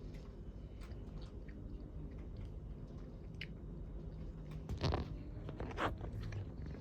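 A cat chewing food: small clicks throughout, with two louder chews about five and six seconds in.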